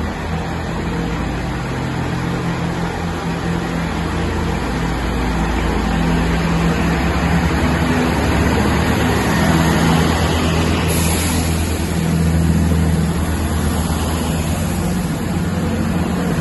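A train's engine running with a steady low hum, growing slowly louder over the first ten seconds. A thin, high whine joins about eleven seconds in.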